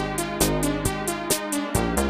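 Electronic background music with a quick, steady beat over a bass line.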